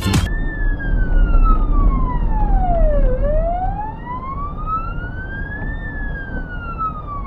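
Fire engine siren in a slow wail, sliding down from high to low, back up, and down again, each sweep taking a few seconds, over the low rumble of engine and road noise.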